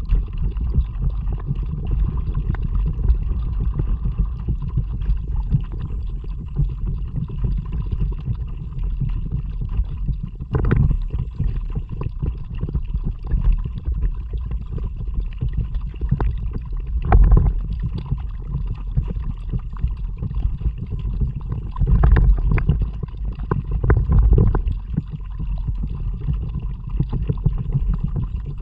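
Kayak moving through water: a steady low rumbling wash, with a few louder sharp sounds along the way.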